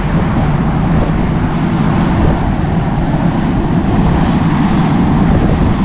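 Steady roar on the open top deck of an underway car ferry: the ship's engine and funnel ventilation noise mixed with wind across the deck, heaviest in the low end with no separate events.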